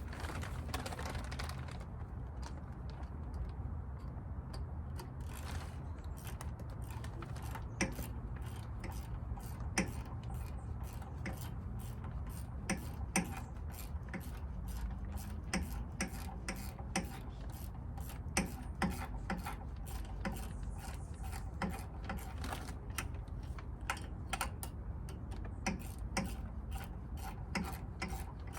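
Ratchet wrench clicking in irregular runs as nuts are loosened on a generator casing, over a low steady hum.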